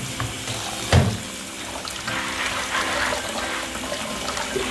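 Tap water running and splashing through a plastic colander of raw peanuts in a stainless steel sink as the peanuts are rinsed, louder from about two seconds in. A single thump comes about a second in.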